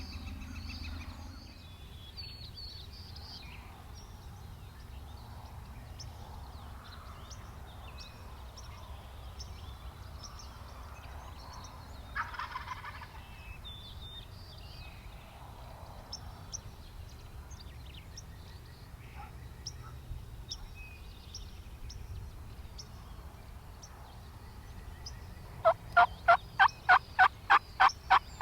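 Faint songbird chirps over a low steady outdoor background, then near the end a loud, evenly spaced run of turkey yelps, about four a second.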